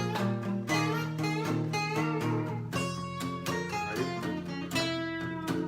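Guitar playing an instrumental passage of a live song: plucked and strummed notes over a steady bass line.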